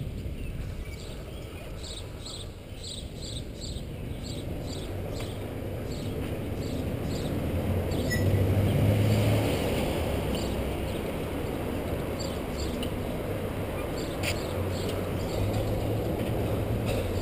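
Street traffic heard from a bicycle: wind noise on the microphone and the low hum of motor vehicles, with an engine growing loud close by about halfway through, then a vehicle idling alongside. A light, regular ticking about twice a second sounds over the first several seconds.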